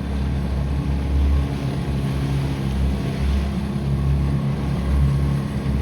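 A motor running steadily: a low, even engine drone under a broad rushing noise.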